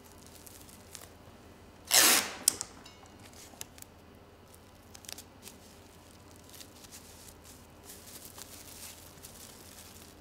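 Plastic cling film and masking tape crinkling and rustling softly under hands pressing a head template into shape, with one loud brief noise about two seconds in and a sharp click just after it.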